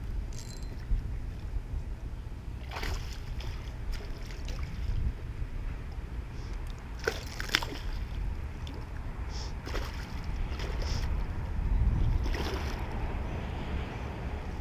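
A hooked peacock bass splashing and thrashing at the surface as it is played to the bank, in several separate splashes, over a steady low rumble.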